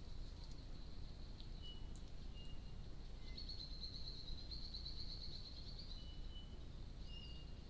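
Forest ambience through a trail camera's microphone: a steady low background noise with short, thin bird notes scattered through, and a rapid, high trill starting about three seconds in and lasting a few seconds.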